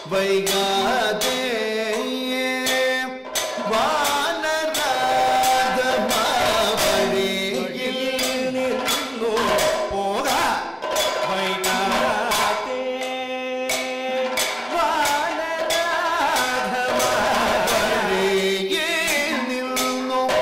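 Kathakali music: a male vocalist singing a sustained, ornamented melodic line, accompanied by a chenda drum beaten with sticks and hand-held percussion keeping a steady rhythm of frequent strokes.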